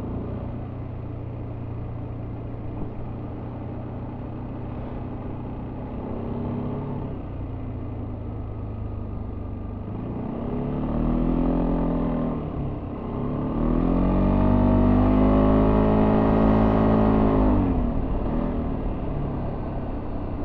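Yamaha Tricity 300 scooter's single-cylinder engine through its stock exhaust, heard on board while riding. It runs steadily, then accelerates twice about halfway through, the pitch rising and falling each time. The second pull is longer and louder before the throttle eases back.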